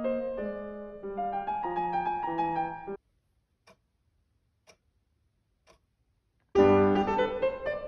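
Piano music that breaks off about three seconds in; in the pause a wall clock ticks three times, a second apart, then the piano comes back in louder near the end.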